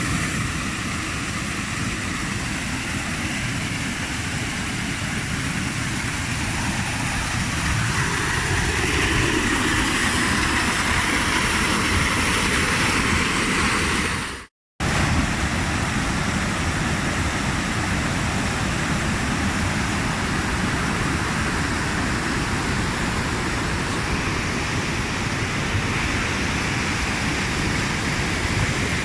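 Water rushing steadily, a loud, even hiss with no break in it, cut off briefly halfway through and then going on again.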